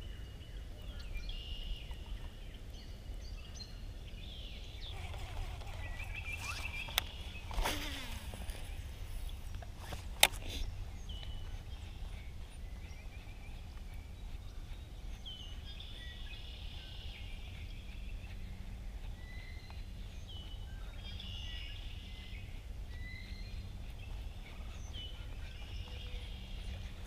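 Outdoor lakeside ambience: birds chirping in short repeated calls over a steady low wind rumble. About seven seconds in comes a falling swish, and about ten seconds in a single sharp click, fitting a swim jig being cast and the reel closing.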